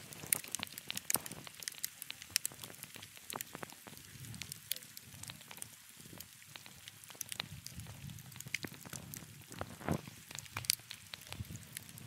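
Wood fire crackling, with frequent short sharp pops and a couple of louder ones about ten seconds in.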